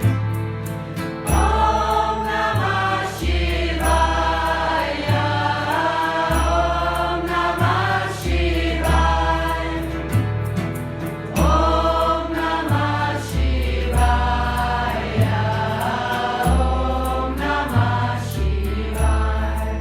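Devotional mantra chanting in kirtan style: a group of voices sings over a bass line that steps between notes every second or two, with a quick steady percussive tick.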